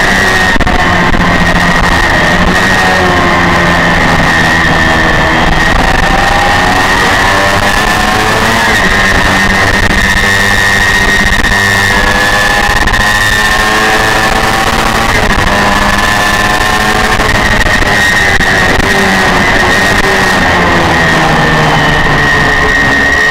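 Honda VFR400's V4 engine racing at high revs around 12,000 rpm, heard from on board the bike, its pitch rising and falling over several seconds as it accelerates and backs off, over steady wind noise.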